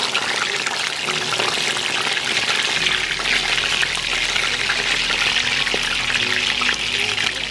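Sausages frying in shallow hot oil in a pan: a steady sizzle full of small crackling pops.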